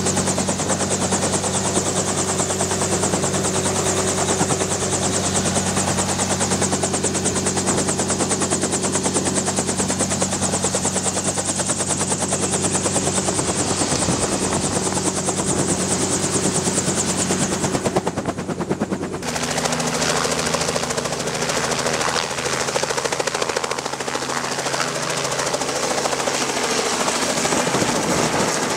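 Small Robinson helicopter running close by, its rotor beating in a fast, even chop over a steady engine drone. About eighteen seconds in the sound breaks briefly and comes back with a different pitch as the helicopter flies just overhead.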